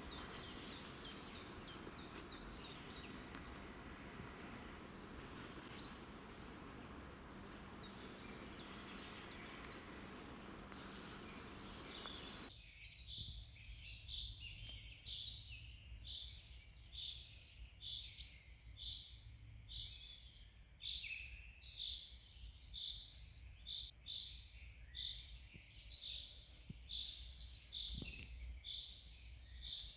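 Birds singing and chirping over a steady background hiss. About twelve seconds in the hiss drops away abruptly, and dense, rapid, repeated bird song carries on, clearer and louder.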